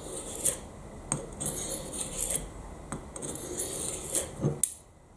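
Steel knife edge drawn across a dark block to dull it: a few gritty scrapes, with sharp clicks as the blade meets the block.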